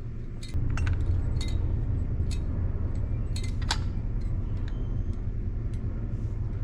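Small metal carburetor parts, such as the floats, clicking and clinking as they are handled on the bench, a dozen or so separate ticks. Under them runs a steady low rumble that gets louder about half a second in.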